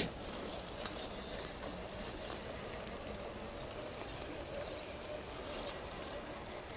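Scale RC crawler truck's electric motor and gear drivetrain whirring with a faint wavering hum as it crawls over the wet trail, over a steady hiss.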